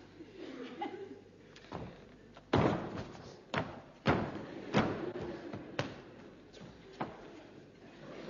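A series of about seven heavy thuds, spaced irregularly about a second apart; the loudest comes about two and a half seconds in.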